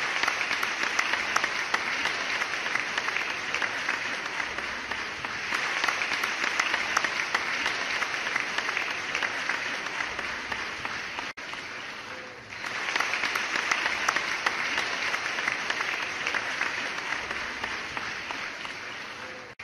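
Crowd applauding, many hands clapping steadily. The clapping dips suddenly about eleven seconds in and picks up again a second or so later.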